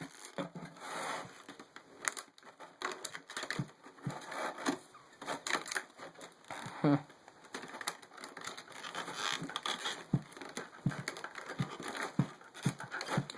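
Packaging being crinkled, bent and pried at by hand while it is being opened, with irregular crackles and sharp snapping clicks.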